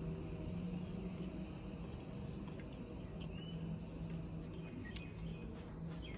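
Eating sounds: chewing a mouthful of spaghetti and a metal fork clinking and scraping in a ceramic ramekin, a few light scattered clicks over a steady low hum.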